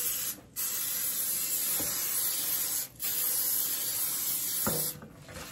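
Aerosol can of cooking spray hissing as it coats a pan: a long steady spray, broken briefly twice, about half a second in and about three seconds in, that stops near the end.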